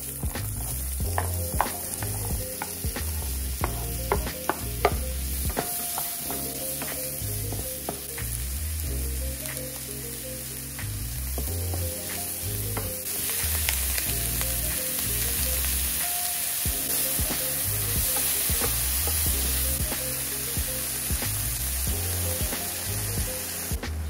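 Diced vegetables sizzling as they fry in oil in a nonstick pan, with a spoon clicking and scraping against the pan as they are stirred. The sizzle gets louder about halfway through.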